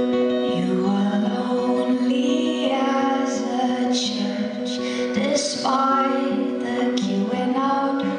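Live music: a woman singing a slow song over sustained acoustic accompaniment, her long held notes and soft consonants carrying over the instruments.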